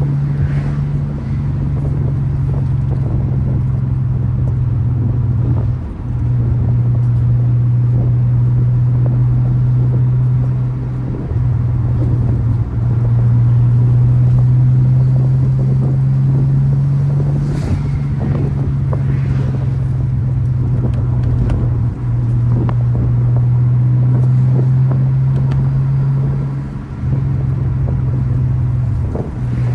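Turbocharged VR6 engine and exhaust droning at a steady, low engine speed. The pitch steps slightly up and down, and the level dips briefly a few times.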